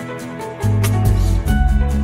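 Background music with a bass line, guitar and a steady drum beat.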